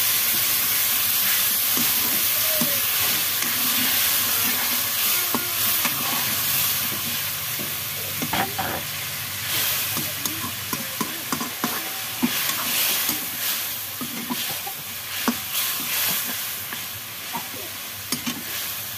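Water just poured into a hot kadai of frying onion, cabbage, tomato and kidney beans sizzles with a steady steamy hiss that slowly dies down. From about eight seconds in, a metal ladle stirring and scraping in the pan adds scattered light knocks.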